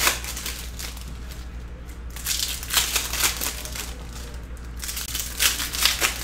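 Stack of chrome trading cards being handled and flipped through, the slick cards sliding and flicking against each other in three short spells of crisp rustling.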